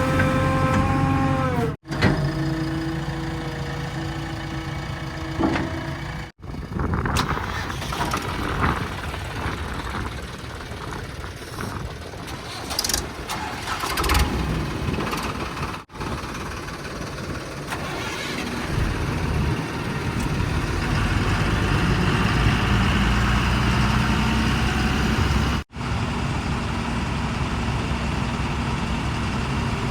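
Diesel engines of heavy farm and construction machinery running and revving, in several short clips cut together. Near the start a pitched multi-tone sound is heard, and later the engine note steadies at a higher pitch.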